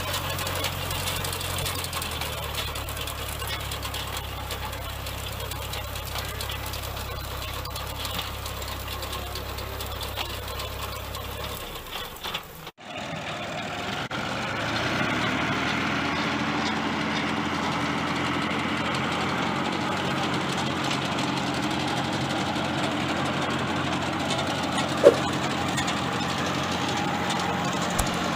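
New Holland Ghazi tractor's diesel engine running steadily as it pulls a digger-type garlic and onion harvester through the soil. About 13 s in the sound cuts abruptly to a closer, louder steady engine note. A single sharp click about 25 s in.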